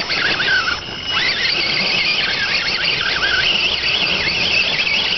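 RC rock crawler's electric motor and geared drivetrain whining under throttle as the truck crawls over rocks. The high-pitched whine wavers up and down in pitch with the throttle.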